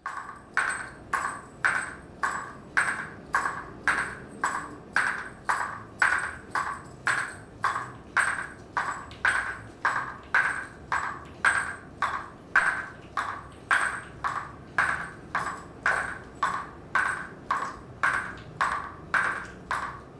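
Small metal percussion struck in a steady rhythm, about two strikes a second, each with a short, clear ring.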